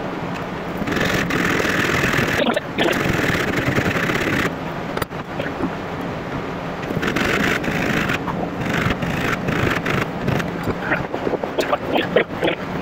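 Rough scraping on wood in strokes of one to two seconds, with short gaps between them, over a steady low hum.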